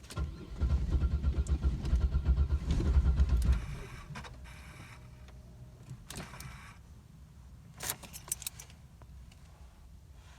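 Car engine cranking on the starter for about three seconds with a quick pulsing beat, never catching, then stopping; a few key clicks and jingles follow later. It sounds like it wants to crank but isn't getting fuel, which the owner takes for no gas reaching the engine.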